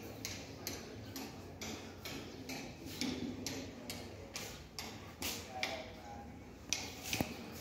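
Footsteps on a hard floor, evenly paced at about two steps a second, each step a sharp click.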